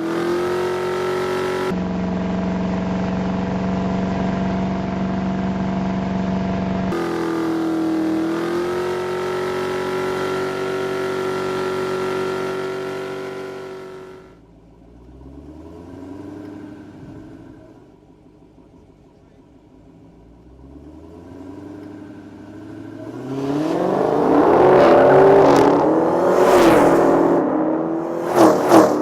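Dodge Challenger SRT Hellcat's supercharged 6.2-litre V8 running. A long steady drone holds for about the first half, then the engine revs up and down several times. It is loudest near the end, with two sharp bangs just before it stops.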